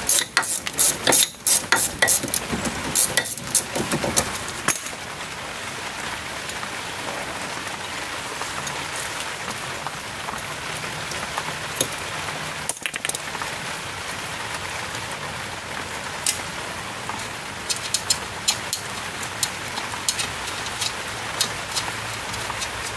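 Hand ratchet clicking in runs as the 7/16-inch screws holding the brake dust shield are backed out, busiest in the first few seconds and again in short bursts near the end, over a steady hiss.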